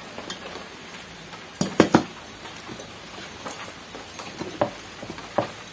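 Eating sounds from a meal of rice taken by hand from a steel plate: a few sharp clicks and smacks, the loudest pair close together about two seconds in, with softer ones later.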